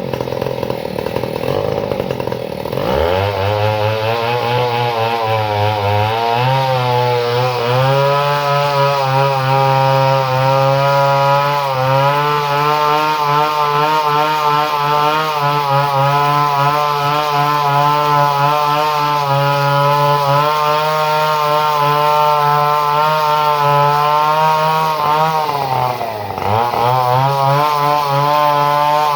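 Two-stroke chainsaw engine running at high revs. Its pitch drops sharply and climbs back about three seconds in, and again near the end.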